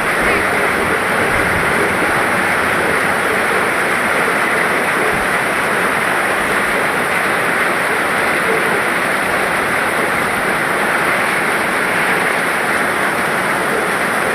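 Steady rainfall: an even, unbroken hiss of rain that holds at the same level throughout.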